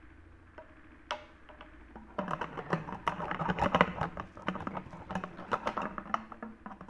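Plastic water bottle tumbler handled close to the microphone: a dense clatter of clicks and knocks that starts about two seconds in, after a single click.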